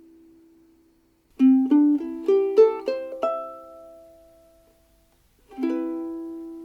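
Seilen SLVS-255 soprano ukulele with a Hawaiian koa body, played: a chord dies away, then a quick run of single plucked notes climbs in pitch and rings out, and a final chord is struck near the end and left ringing.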